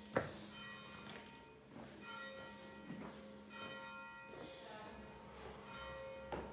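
Bell-like tones chiming in a slow, repeating pattern, each strike ringing and fading. A sharp knock comes just after the start.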